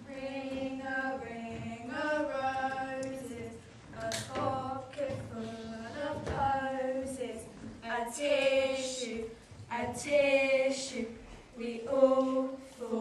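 A small group of voices singing together without instrumental accompaniment, in short held phrases with brief breaks between them.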